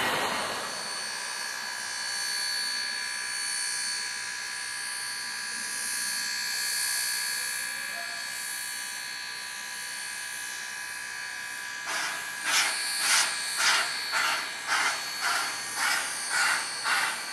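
1907 Baldwin 2-6-0 steam locomotive standing with steam up, giving a steady hiss with a thin whine. About 12 seconds in, rhythmic steam puffs start at roughly two a second.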